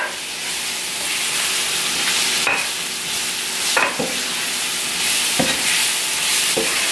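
Chopped carrot, bell pepper and onion sizzling in oil in a nonstick frying pan, with a steady hiss. A spatula stirs them, scraping and knocking against the pan a few times.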